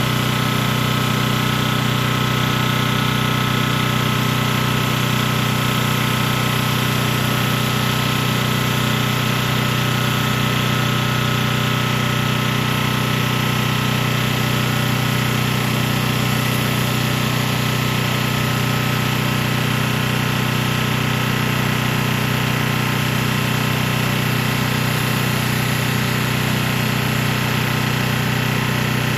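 Industrial pressure washer running steadily, its engine hum under the hiss of high-pressure water jets as a 20-inch Whirlaway rotary flat surface cleaner scrubs a resin-bound driveway. The sound holds steady, with a faint even pulsing in the hum.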